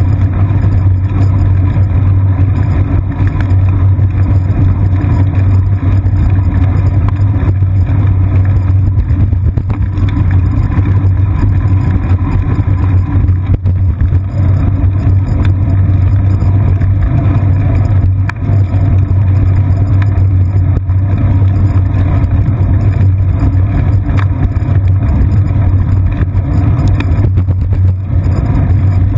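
Steady low rumble of wind and road vibration picked up by a bicycle seat-post-mounted GoPro Hero 2 while riding along a wet paved path.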